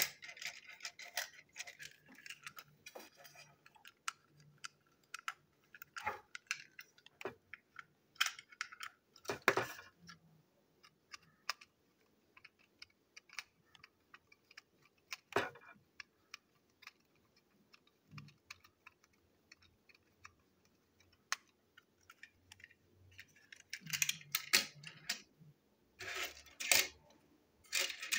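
Small, irregular plastic clicks, taps and rattles of a toy train truck's plastic body and wheeled chassis being handled and fitted together, with a busier cluster of clicks near the end.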